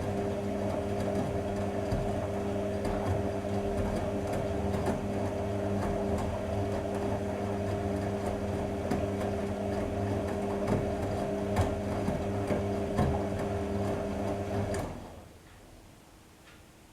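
AEG Öko Lavamat Edition 2000 washing machine running with a steady hum and light clicking, stopping about fifteen seconds in.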